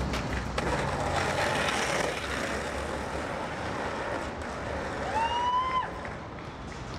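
Skateboard wheels rolling on concrete amid steady street traffic noise, with a short rising squeal about five seconds in.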